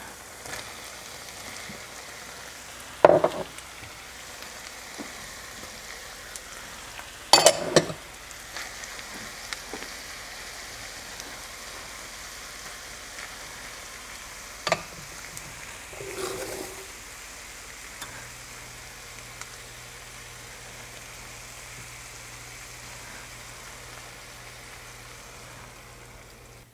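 A sauté pan of shiitake mushrooms, red onion, sliced potatoes and green beans sizzling steadily on the stove. A few sharp clinks against the pan cut in, the loudest about seven seconds in.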